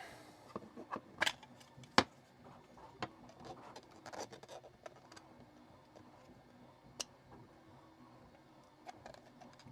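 Hard plastic clicking and scraping as a deburring tool is forced into a tight-fitting 3D-printed PLA+ case, with scattered sharp clicks, the loudest about two seconds in, and rubbing between them.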